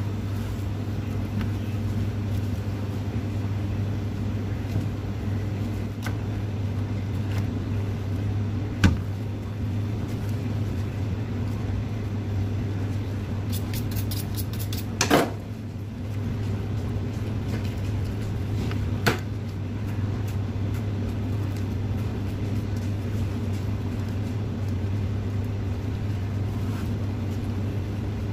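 Steady low hum of butcher-shop refrigeration, with three sharp knocks of a boning knife and pork leg against a plastic cutting board; the loudest is about halfway through.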